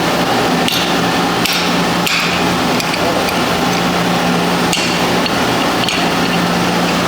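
Irregular metal knocks and clanks from hand tools working on a sump pump and its piping, about six sharp strikes with a brief ringing tail, over a steady low machinery hum.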